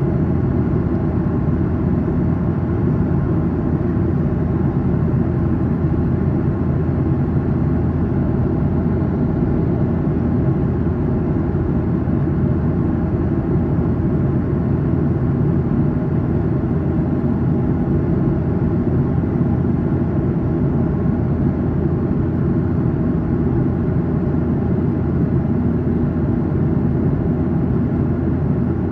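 Cabin noise of a Boeing 737-800 in cruise: steady rushing airflow and CFM56-7B engine hum, strongest in the low end and unchanging throughout.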